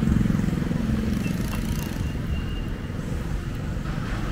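Street traffic: a small engine idling close by fades away over the first second or two, leaving a steady low traffic rumble.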